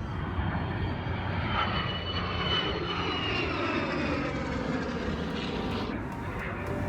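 Aircraft flying past at an air show: steady engine noise with a high whine that slowly falls in pitch as it goes by. The whine drops away about six seconds in.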